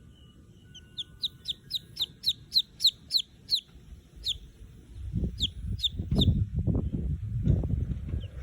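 Baby chicks peeping: a fast run of short, high, falling peeps, about four a second, then a few scattered ones. From about halfway through, a loud low rumbling noise takes over.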